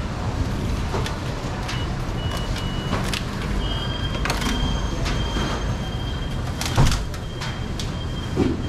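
Steady low background rumble with scattered short knocks of a knife against a plastic cutting board and one louder thud about seven seconds in. A thin high beep sounds on and off.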